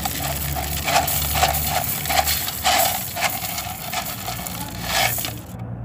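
Coarse orchid potting mix of crushed gravel and charcoal poured from a black plastic nursery pot into a clay pot: a continuous rattle of small hard pieces tumbling and clicking, which stops shortly before the end.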